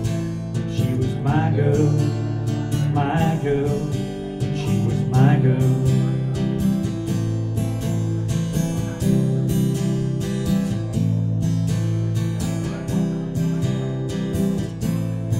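Acoustic guitar strummed in a steady rhythm, played solo without singing.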